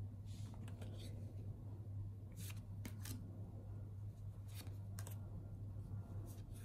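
Small oracle cards being flipped by hand one at a time, making soft papery slides and snaps of card stock several times over a few seconds, over a steady low hum.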